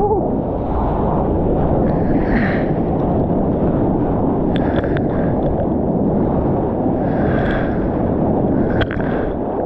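Rushing water of a breaking wave and wind noise on the GoPro's microphone as the surfboard rides along the wave face: a loud, steady roar, with spray spattering onto the camera now and then.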